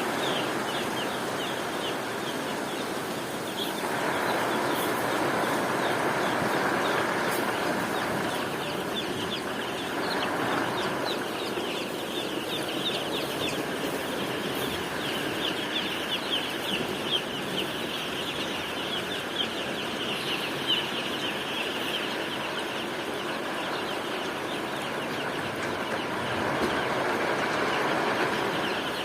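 A flock of chickens clucking and peeping continuously over a steady hiss.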